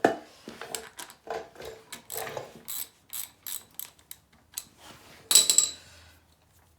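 Ratchet wrench clicking in uneven strokes as the bolt holding the kickstart lever is backed out, ending in a brief, louder ringing metal clink a little after five seconds in.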